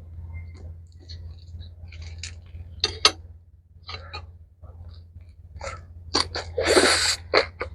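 Close-miked chewing and mouth sounds of someone eating mixed rice with mustard-green kimchi: scattered soft clicks and smacks that get louder and come thicker in the last couple of seconds, over a steady low hum.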